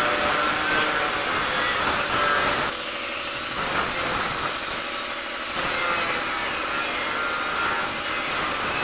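Compressed-air paint spray gun hissing steadily as red paint is sprayed through a stencil onto a truck body panel, easing off slightly for a couple of seconds partway through.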